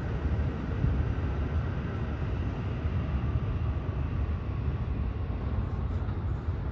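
An R68 subway train running away along an elevated steel viaduct: a steady low rumble.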